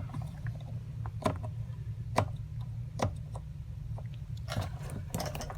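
A few short clicks and taps, roughly a second apart, as a push-button connector on the fuel pump assembly is pressed and worked without coming free. A steady low hum runs underneath.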